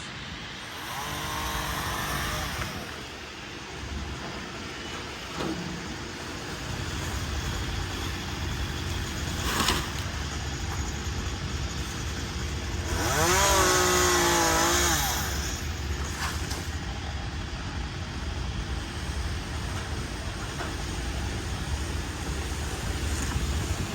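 An engine runs steadily with a low rumble. Twice, at the start and about 13 seconds in, a louder wavering pitched sound rises over it, the second time for about two seconds.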